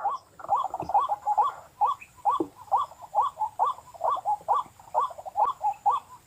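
White-breasted waterhen calling: a hoarse 'ruak' note repeated steadily, about two a second.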